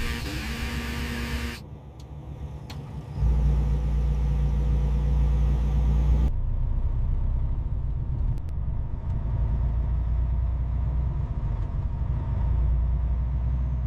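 Semi-truck engine running with a deep, steady rumble, in several stretches that change abruptly. A hiss with a steady tone covers the first second and a half.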